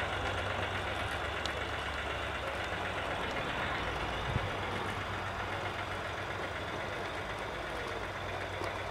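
Model Class 03 diesel shunter's sound card playing a steady diesel engine note through the locomotive's small speaker as it runs hauling wagons.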